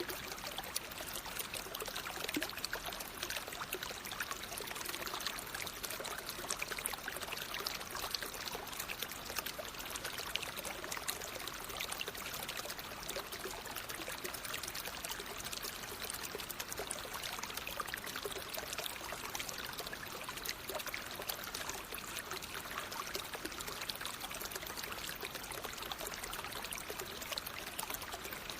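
Natural flowing water: a steady rush of running water with many small splashes and trickles in it.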